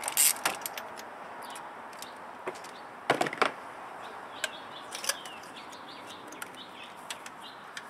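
Scattered light clicks and knocks of a ratchet and spark plug socket being worked at an engine's spark plug well, with a short clatter about three seconds in; faint bird chirps in the background.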